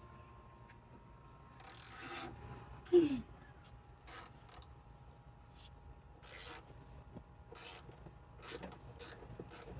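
Hand tools working bolts loose on a tractor: short, irregular scraping and ratcheting strokes, with one loud squeak about three seconds in that slides down in pitch.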